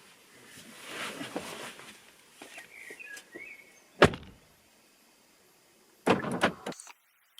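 A car door shut with a single heavy thump about four seconds in, after faint handling noise. A second, longer noisy burst follows near the end, then the sound cuts off abruptly.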